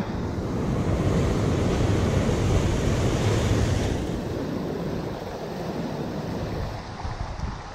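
Ocean surf breaking and washing over shoreline rocks. It is loudest for the first four seconds or so, then eases.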